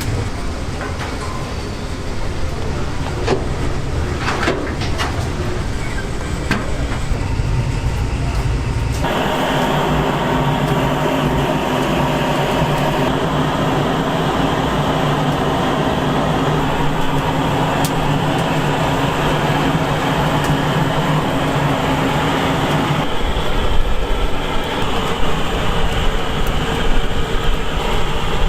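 Steady machine rumble with a hum, plus a few sharp clicks in the first five seconds. The hum grows much stronger about nine seconds in and eases off again near 23 seconds.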